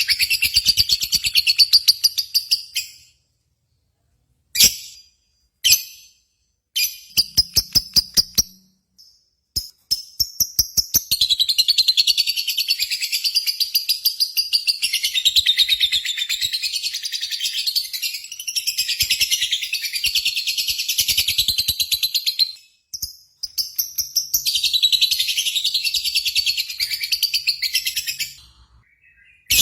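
Lovebird chattering song: long runs of rapid, high-pitched chirps repeated many times a second. It breaks off a few seconds in into short bursts, then runs unbroken for about ten seconds, pauses briefly and goes on again.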